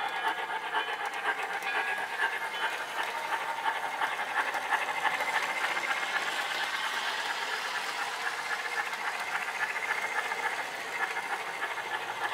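Proto-Sound 2.0 sound system of an MTH Rail King Pennsylvania Railroad B-6 0-6-0 switcher model steam locomotive, playing a quick, even steam chuff with hiss as the engine runs around the track.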